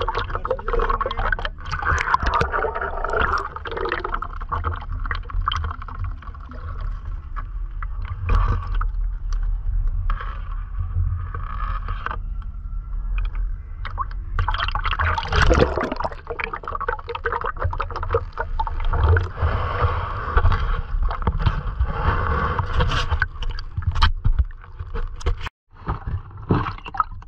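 Shallow seawater lapping and sloshing close by, with a low wind rumble and scattered splashes and knocks; it cuts out briefly near the end.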